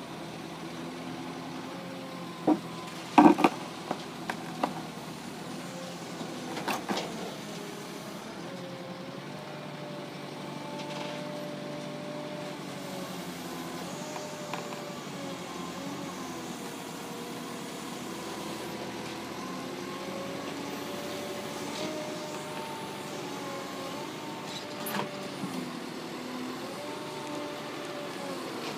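Menzi Muck A91 walking excavator's engine running with a hydraulic whine that shifts in pitch as the boom and legs move while it climbs down off a truck. Sharp metal clanks and knocks come about three seconds in, again near seven seconds and near the end.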